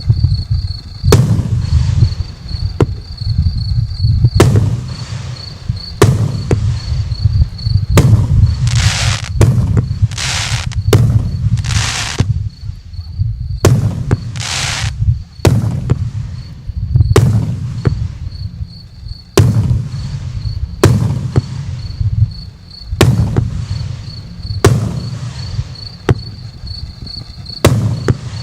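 Firework cake firing a string of shots, a sharp bang every one and a half to two seconds over a deep rumble, with several longer hissing bursts in the middle stretch.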